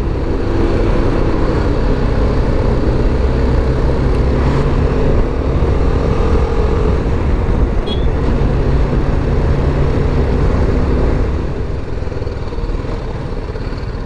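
Single-cylinder BMW G310GS motorcycle engine running steadily while riding on the road, with road and wind noise over the microphone; it eases off and gets a little quieter near the end.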